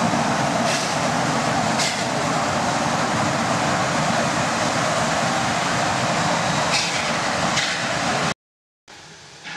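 Narrow-gauge steam locomotive venting a jet of steam from a valve low on its side: a loud, steady hiss and rush that cuts off abruptly about eight seconds in.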